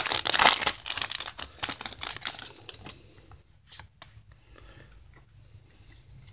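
Foil wrapper of a Yu-Gi-Oh booster pack crinkling and tearing as it is ripped open, loud for the first two seconds or so. After that it is much quieter: faint rustles and a few small clicks as the trading cards are handled.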